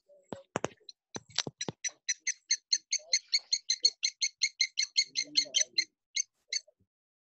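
A bird calling a fast series of short, identical high notes, about six a second, for nearly four seconds. A few sharp clicks come just before it.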